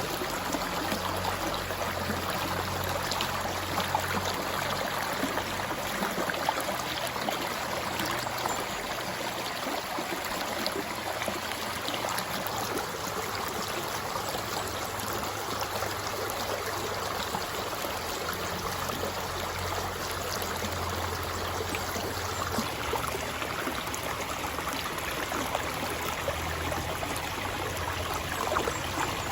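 River water flowing: a steady rush with many small splashes and gurgles through it.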